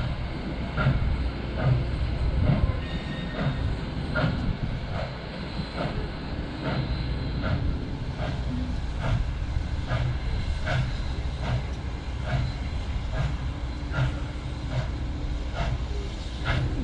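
Southern 4501, a 2-8-2 Mikado steam locomotive, working its train away with a steady beat of exhaust chuffs, a little over one a second, over a low rumble.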